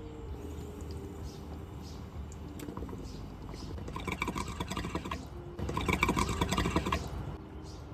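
Water bong bubbling in two long draws: a fast gurgle of bubbles about three seconds in, a short break, then a second, louder draw that stops about a second before the end.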